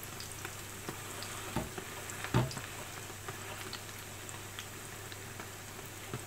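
Saltfish fritters shallow-frying in oil in a frying pan: a steady sizzle with many small crackles and pops. Two short knocks from the slotted spatula against the pan, about one and a half and two and a half seconds in.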